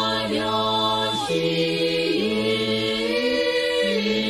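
Choir singing Orthodox akathist chant a cappella in Church Slavonic: long held chords on drawn-out syllables, the parts moving to new notes about every one to two seconds.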